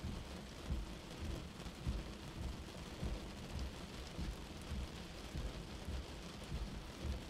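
Windshield wipers on high speed sweeping back and forth in a rainstorm. A regular low thump comes about every half second over a steady hiss of rain.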